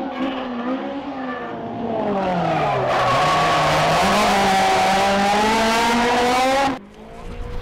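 Toyota AE86 drift car's engine, its note falling over the first few seconds. It then holds steady revs while the tyres squeal loudly through the slide. The sound cuts off suddenly near the end.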